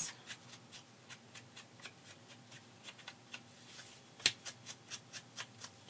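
Small ink blending tool dabbed and rubbed around the edges of a paper cutout: a run of light, irregular taps and paper rustles, with one sharper tap about four seconds in.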